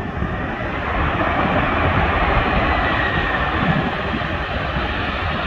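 Jet engine roar from a Boeing 747 rolling out on the runway just after landing, swelling about a second in and then holding steady. Wind buffets the microphone underneath.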